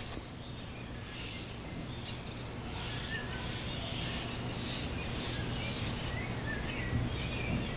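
Birds calling over a steady background hum and hiss. A high, rising-and-falling chirp comes about every three seconds, with fainter short calls lower down.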